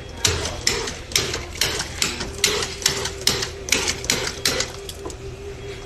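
Regular sharp taps or clicks, about two and a half a second, over a faint steady hum; they die away about five seconds in.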